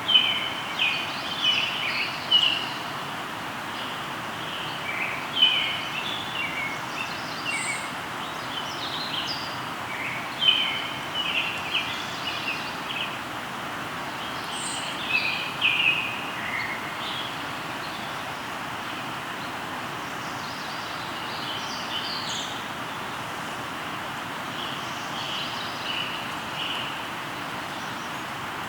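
Steady rushing of a flowing river with birds singing over it: many short chirps and quick trills through the first half, growing sparser later on.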